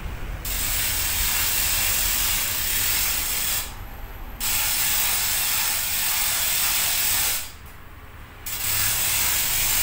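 Hand winch on a homemade forklift's mast being cranked, its ratchet clicking rapidly in long runs that blur into a hiss. It starts about half a second in and breaks off twice, briefly near four seconds and again near eight seconds.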